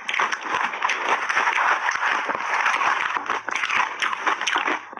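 Crunchy shaved ice being chewed in big mouthfuls: a dense, continuous run of crisp crackles and crunches.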